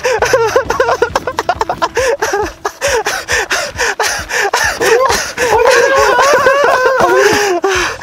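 Two men panting and laughing in short gasps as they run, with quick footsteps of Crocs and slippers slapping on an asphalt path.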